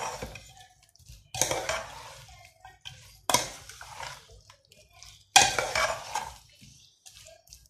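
A metal spoon stirring and scraping a wet mix of sliced onions, bitter gourd and yogurt around a large metal pot, in three strokes, each starting sharply and fading over about a second.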